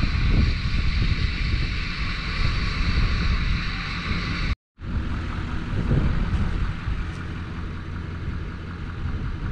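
Pickup truck's engine idling, a steady low rumble, with wind buffeting the microphone. The sound drops out for a moment about halfway through.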